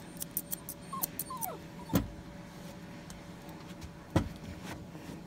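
Grooming scissors snip a few times, then the Lhasa Apso puppy on the table gives two short falling whines about a second in. Two dull thumps, the loudest sounds, follow about two seconds apart.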